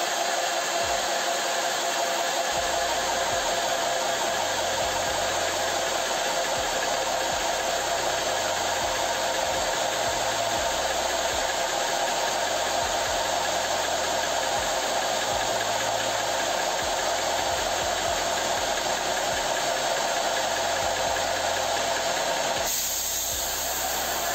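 Portable electric PCP air compressor running steadily, its motor and cooling fan working as the pressure builds with the drain closed. Near the end the sound changes as the drain is opened to bleed off the pressure at about 200 bar.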